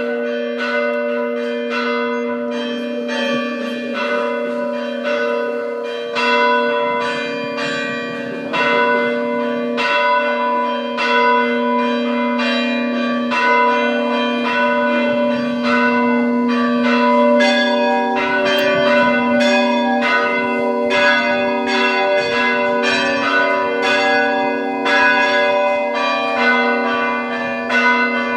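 Greek Orthodox church bells ringing: several bells struck in a quick, uneven rhythm, about two or three strikes a second, over a steady low hum. Another bell of a different pitch joins partway through.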